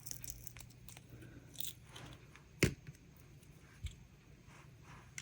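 Faint rubbery scrapes and flexing of silicone molds as cured resin succulent castings are popped out, with one sharp click about two and a half seconds in and a smaller one near four seconds.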